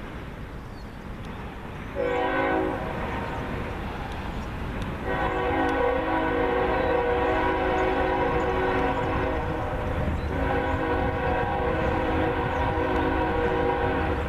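CSX freight locomotive's multi-chime air horn sounding for a grade crossing: a short blast about two seconds in, then a long blast and, after a brief break about ten seconds in, another long one, over a steady low rumble.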